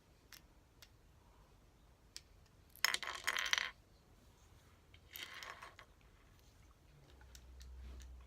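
Plastic Rubik's Cube pieces clattering onto a hard surface twice, the first louder and longer, about three seconds in and again about five seconds in, with small clicks of pieces being worked loose in between.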